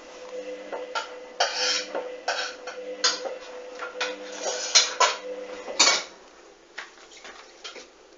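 Hoover front-loading washing machine tumbling a duvet: a steady motor hum under irregular knocks, clatter and swishes from the turning drum. The motor hum stops about six seconds in as the drum pauses.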